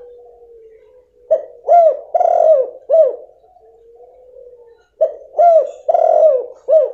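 Female spotted dove (tekukur) cooing, a call used as a lure to set silent males calling. It gives two phrases of four short arching coos, the third coo in each longer, the second phrase starting about five seconds in.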